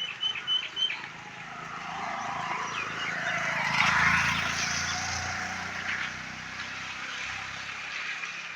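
A bird gives a few quick high notes at the start. Then a motor vehicle passes, swelling to its loudest about four seconds in and fading away.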